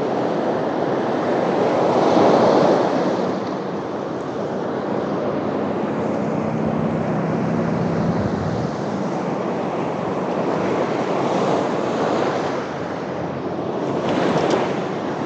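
Ocean surf washing onto a beach: a steady rush of waves that swells about two seconds in and again near the end.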